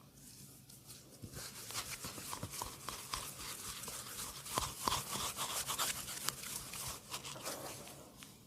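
Hands rubbing rapidly on hair and skin in a massage, making a dense crackling rustle. It grows louder a little over a second in, has a few sharper snaps around the middle and eases off near the end.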